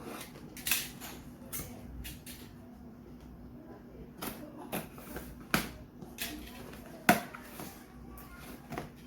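Irregular sharp clicks, taps and knocks of an item and its packaging being handled while it is unboxed, over a faint steady hum.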